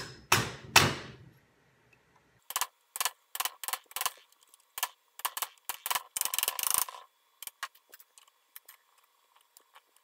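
Small steel pin punch clicking and tapping, metal on metal, against the cross pin of a pinned-and-welded birdcage flash hider as the pin is worked back and forth. A few sharp knocks at the start, then a run of quick irregular ticks for several seconds that thins to scattered faint ticks near the end.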